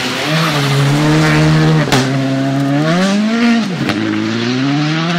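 Škoda Fabia rally car's turbocharged four-cylinder engine under hard throttle. Its note holds steady, climbs for over a second, then drops sharply, with a sharp crack about two seconds in and another near four seconds.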